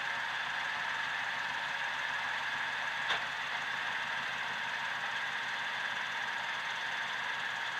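Truck engine idling steadily, heard from underneath the truck, with a single click about three seconds in.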